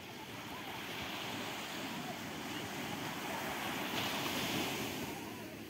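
Sea surf: a steady rush of small waves washing in, swelling to its loudest about four seconds in, then easing off.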